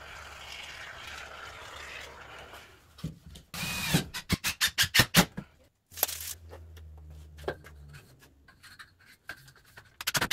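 Aerosol can of window-and-door foam sealant hissing steadily as it sprays along the door frame for about three seconds. This is followed by a short loud hiss and a quick run of sharp clicks and knocks, with more clicks near the end.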